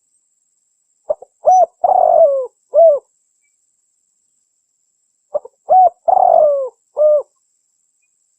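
Spotted dove (tekukur) cooing: two identical phrases about four seconds apart, each a couple of short clicks followed by three coos, the middle one longest and sliding down in pitch. The uploader presents it as a female calling to males, used as a lure call.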